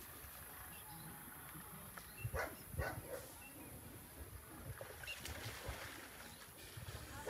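A horse cantering across soft ploughed soil, its hooves landing as dull, low thuds, with a foal running alongside. A few short, sharper sounds come in quick succession about two to three seconds in.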